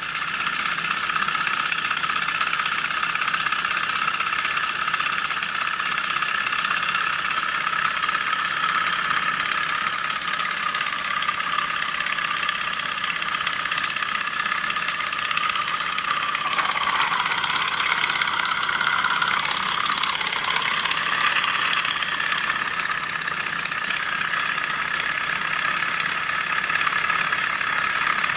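Two-piston gamma-type Stirling engine kit running fast on its alcohol burner, its pistons, crank and flywheel making a steady high-pitched mechanical whir.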